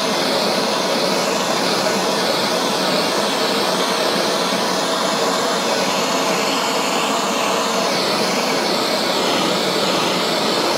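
Handheld gas blowtorch on a yellow MAP-Plus cylinder burning with a steady hissing roar, its tone wavering slightly as the flame is swept back and forth.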